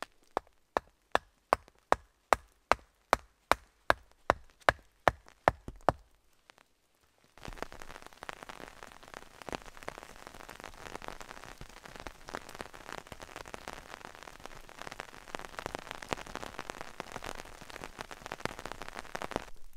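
About fifteen sharp, evenly spaced knocks, roughly two and a half a second, for the first six seconds: a wooden stake being hammered into the ground at the corner of a poncho shelter. After a short pause, steady rain falls, with many small drop ticks.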